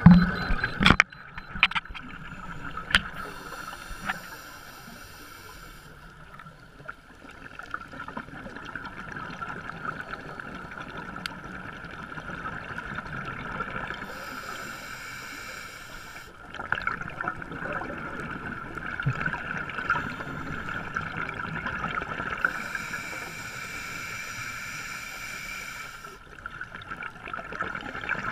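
Scuba diver's regulator exhaling bubbles, heard underwater through a camera housing: three bubbling bursts, each two to three seconds long, about nine seconds apart, over a steady background hum. Knocks against the housing in the first second or two.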